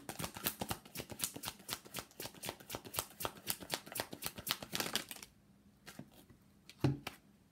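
Tarot deck being shuffled by hand: a rapid run of clicks for about five seconds, then quieter, with a single thump near the end.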